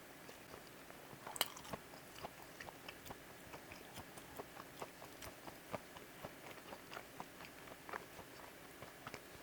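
Close-miked chewing of a hot dog: a steady run of small wet mouth clicks and smacks, with one sharper click about one and a half seconds in.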